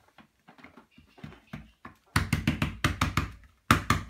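Hands patting a paint-loaded wall-stamp template flat against a wall: faint light taps at first, then from about halfway a quick run of loud knocks, about five a second.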